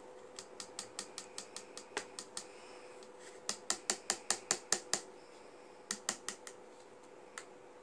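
Small plastic spoon tapped rapidly against the rim of a plastic bowl, knocking thick pink slime colourant off into the bowl. The light clicks come in three quick runs, the loudest in the middle, about five a second.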